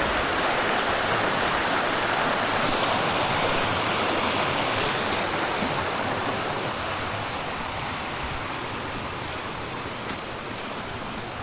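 Running stream water, a steady rush that grows gradually fainter over the second half.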